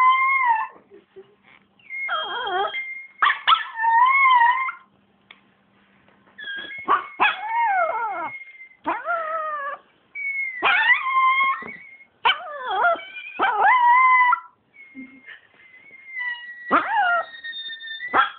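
Chihuahua howling, or "singing": a series of long, wavering, high howls with short pauses between them. Some notes are held level and others slide downward. A few brief knocks are mixed in.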